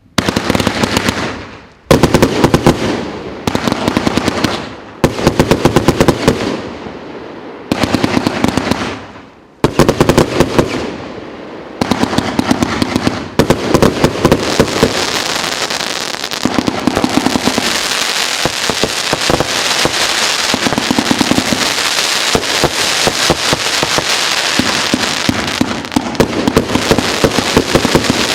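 Consumer fireworks cake (HSK CCK-138) firing rapid volleys of sharp reports. For the first half it fires in separate bursts, each trailing off, then from about halfway it goes on in dense continuous firing.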